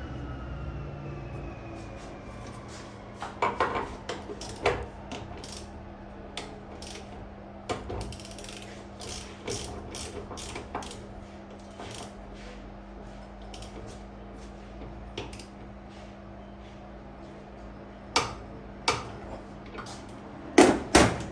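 Hand tools clicking and knocking on metal engine parts in irregular sharp clicks, with a few louder knocks near the end, over a steady low hum.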